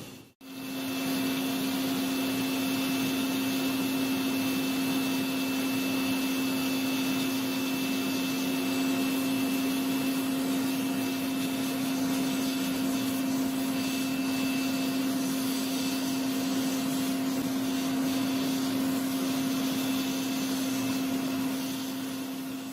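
An electric power tool running steadily: a constant motor hum over an even hiss, starting after a brief dropout about half a second in.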